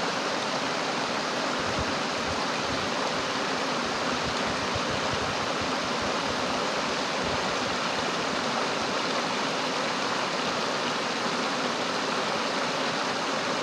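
Rain-swollen stream of fast-flowing water, rushing steadily.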